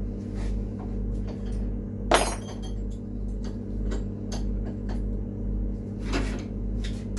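Metal clinks and knocks of steel cutlery being handled and set in a bench vise, with a sharp knock about two seconds in and another near six seconds, over a steady low hum.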